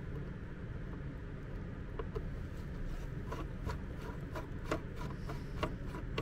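Screwdriver undoing the screws on the case of a MET AIR T-100 air-mattress compressor, opening it to check the fuse: light scraping, with a run of small clicks starting about two seconds in, over steady low background noise.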